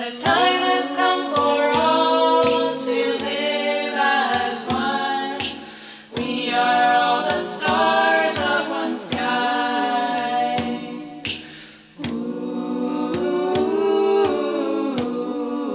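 A cappella vocal music: several voices singing in harmony in long phrases over a steady beat of short clicks. The singing dips briefly between phrases about six and twelve seconds in.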